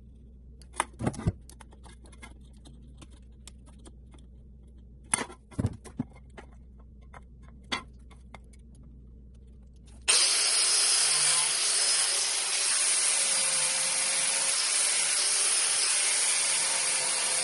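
A few light knocks and clicks over a low hum, then a DeWalt angle grinder starts abruptly about ten seconds in and runs loud and steady, cutting through PVC pipe.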